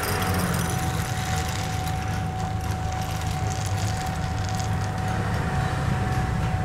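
Small electric drum coffee roaster running with a steady hum and a thin steady whine, while green coffee beans are poured into its hopper with a hiss, strongest as the pour begins.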